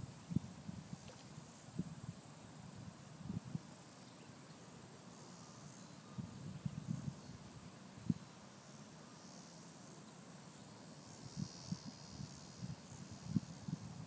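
Steady high-pitched chorus of insects such as crickets, with scattered soft low thumps and a brief wavering high trill near the end.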